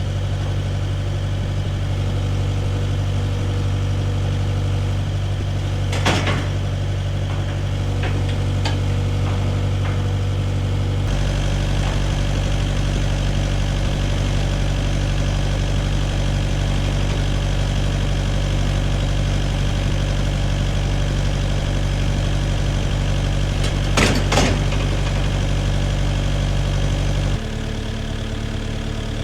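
An engine running steadily at idle. Its tone shifts about 11 seconds in and it drops in loudness near the end, with two sharp knocks at about 6 and 24 seconds.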